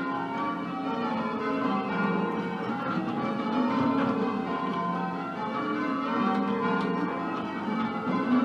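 A ring of ten church bells, 13 cwt in F, being change-rung: strikes follow one another in a steady, unbroken sequence, their tones overlapping and ringing on.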